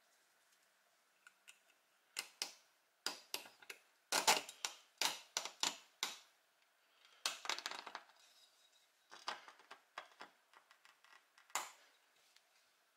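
Small metal parts clicking and scraping in irregular clusters as a part is fitted onto the threaded rod of a painted steel Doepke Heiliner toy's frame, the busiest handling about a third of the way in.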